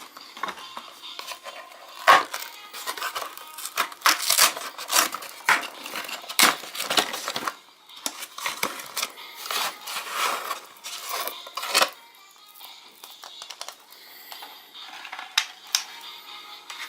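Kinder Surprise egg packaging being torn open and crinkled by hand: a busy stretch of crackling and tearing that drops off to a few light crinkles about two thirds of the way through. Quiet background music plays underneath.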